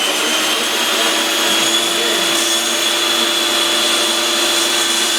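Bosch REAXX jobsite table saw running at full speed just after start-up, a steady high whine from the motor and spinning blade whose pitch levels off about a second in.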